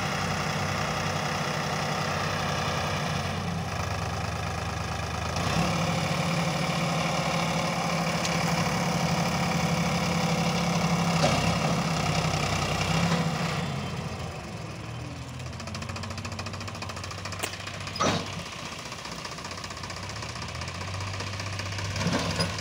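Sonalika diesel tractor engine running steadily while its hydraulics tip a trolley of soil. The engine speeds up about five seconds in, holds for about eight seconds, then settles back to a lower idle, with a short sharp knock near the end.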